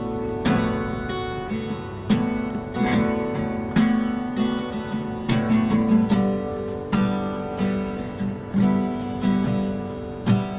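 Acoustic guitar played solo, chords struck about once a second and left ringing: the instrumental opening of a song before the singing comes in.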